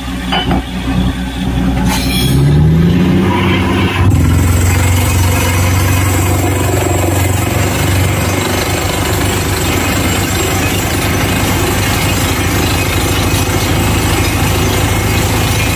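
Bore well drilling rig's engine revving up about two seconds in, then running steadily under load, with a constant rushing noise over it.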